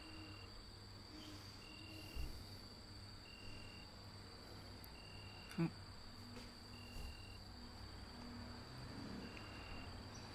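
Faint night insect ambience: crickets chirping in short, evenly spaced pulses about every second and a half over a steady high whine. A single sharp click about five and a half seconds in, and a soft low thud about two seconds in.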